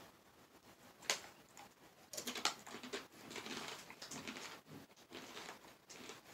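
Plastic chip bag of Takis crinkling as it is handled, in scattered short crackles.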